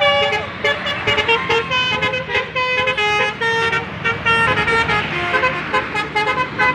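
Intercity bus's multi-tone musical horn (a 'telolet' horn) playing a fast tune of short notes one after another, over road traffic noise.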